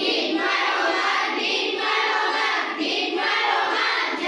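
A group of schoolchildren singing an action rhyme together in chorus.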